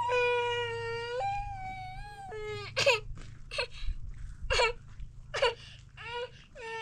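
A young child crying: one long held wail of about two seconds, then short sobbing cries roughly once a second.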